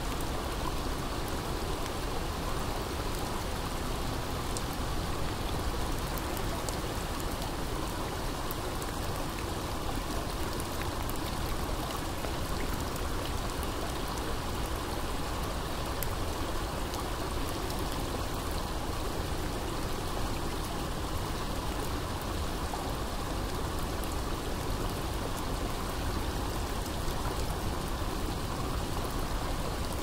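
Heavy rain falling steadily: an even, unbroken hiss with fine scattered drop ticks over it.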